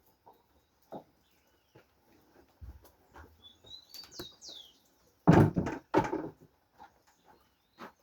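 Farmyard chickens calling, with a few high chirps from small birds midway and a loud two-part call about five seconds in, among scattered light knocks.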